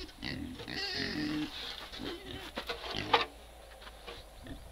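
Corrugated slate roofing sheets clatter as they are handled and set down, loudest about three seconds in. Before that, during the first second and a half, a farm animal calls briefly.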